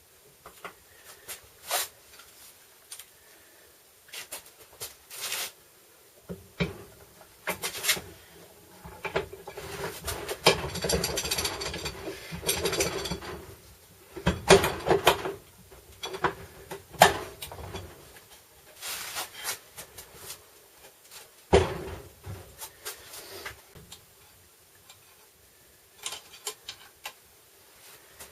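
Hand tools and parts being handled in a workshop: scattered clicks, knocks and rubbing, with a longer stretch of scraping about ten seconds in.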